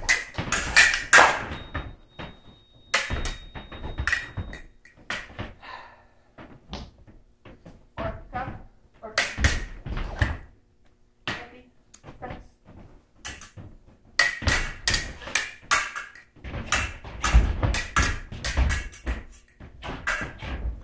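Repeated sharp knocks and bouncing impacts in irregular clusters, some in quick runs of several strikes.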